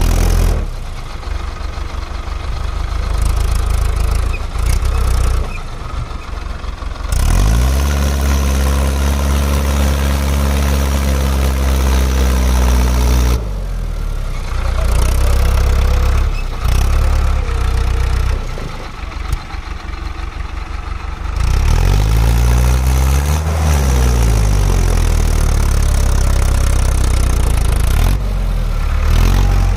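Mahindra Arjun 555 tractor's diesel engine working under load while towing three tractors chained behind it. Its note climbs about seven seconds in and holds steady, goes rough and noisy for a while, then comes back steady after wavering in pitch for a few seconds.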